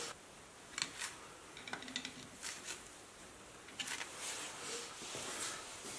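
Faint, scattered metal clicks and light scrapes as a thin tool nudges the greased thrust washer on a Porsche 911 front wheel hub, testing whether the washer can still be moved: a check of the front wheel bearing's adjustment.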